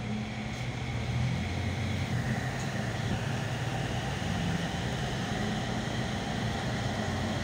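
Solaris Urbino 18 articulated city bus under way, heard from inside: a steady engine hum with road and rolling noise. A faint high whine comes in about two seconds in.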